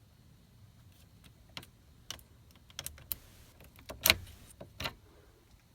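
Scattered metallic clicks and rattles of a key and ignition lock cylinder being turned and worked out of a 1997 Chevrolet Silverado's steering column, the sharpest click about four seconds in.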